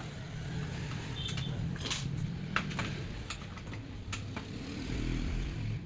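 Scattered clicks and light knocks of plastic printer parts and a screwdriver being handled while an HP LaserJet M1005 is taken apart, over a low steady rumble.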